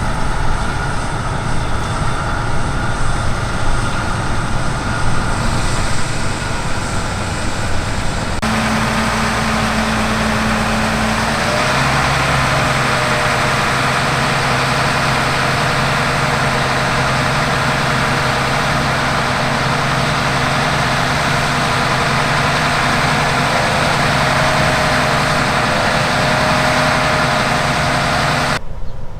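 Heavy harvest machinery running: large diesel engines at a steady speed. The sound changes abruptly about eight and a half seconds in and again just before the end.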